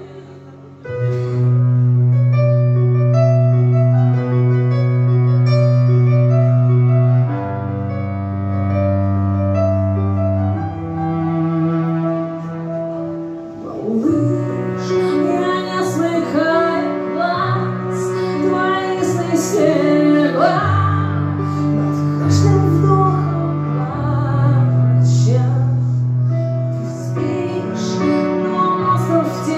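Live instrumental passage: a stage piano plays long held low chords that change every few seconds. About halfway through, a wavering melodic lead with vibrato comes in over them.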